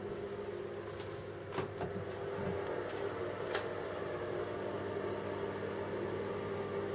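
A steady low mechanical hum, with a few faint clicks scattered through it.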